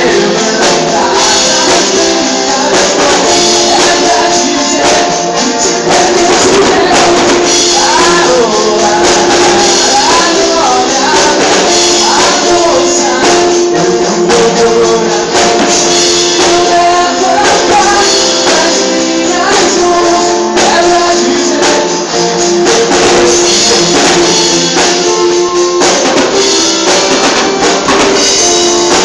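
Worship band music with a tambourine shaken throughout and some singing over steady sustained chords.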